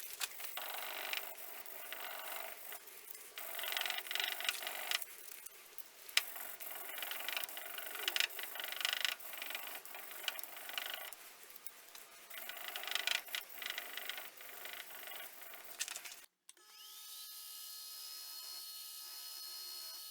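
Abrasive rubbing and rasping strokes, in uneven bursts, as the knife's handle scales are worked by hand. The sound stops abruptly about 16 seconds in and is followed by a steady electric motor whine that rises briefly as the machine spins up.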